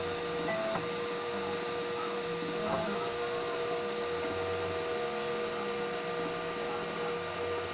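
3D printer running a print: its stepper motors whine in held tones that jump to new pitches every second or so as the head changes moves, over the steady noise of its cooling fans.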